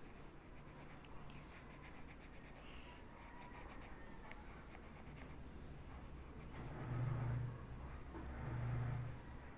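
Faint scratching of a yellow Mongol graphite pencil drawing and shading on lined notebook paper, with two louder, lower rubbing passes in the last three seconds.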